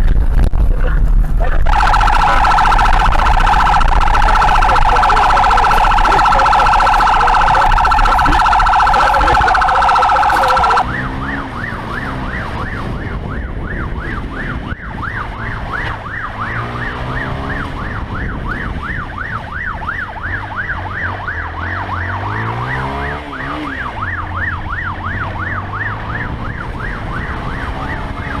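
Police siren: a loud, steady siren tone for the first ten seconds or so, then, after a sudden drop in level, a fast up-and-down yelp siren from a police motorcycle. The motorcycle's engine revs up several times underneath the yelp.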